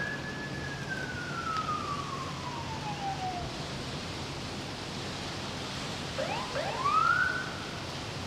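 Emergency vehicle siren wailing: one long, slow falling sweep, then a few seconds later a quick rise to a high held note, the loudest part, over steady background noise.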